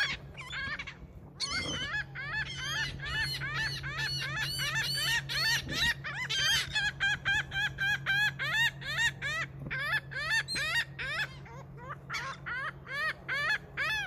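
Laughing gull calling: a long run of rapid, repeated laughing notes, about three a second, with short breaks near the start and near the end.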